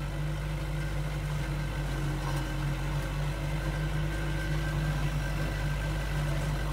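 New Holland tractor's diesel engine running steadily as it drives along a vineyard row, working a flail mulcher that shreds the pruning cuttings.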